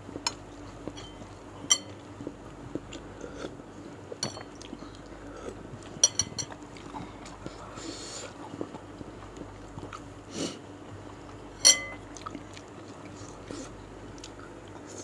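Close-miked eating: chewing of meatballs, with a metal spoon and fork clinking against the bowl several times. The loudest clink, about three-quarters of the way through, rings briefly.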